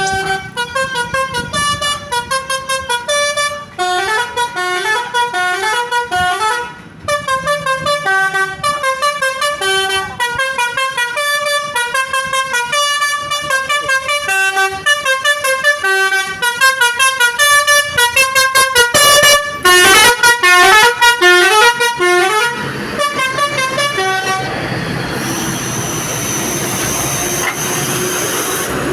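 Basuri V3 telolet horn, a multi-tone bus air horn, playing fast melodic runs of short stepped notes, several a second, with brief breaks between tunes. About 24 seconds in the tunes stop and give way to a steady hiss with a high whine.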